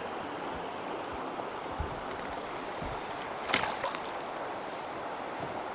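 Steady wash of flowing river water, with a couple of soft low thumps. About three and a half seconds in, a hooked smallmouth bass splashes hard at the side of the canoe as it is brought in by hand.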